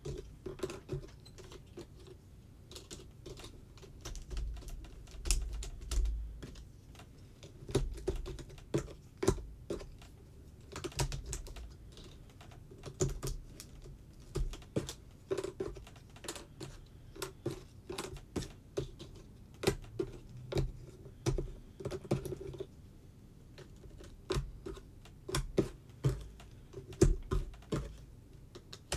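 3D jigsaw puzzle pieces clicking and tapping as they are picked up, shuffled and pressed into place on a table, in irregular clusters of sharp clicks with a few soft thumps.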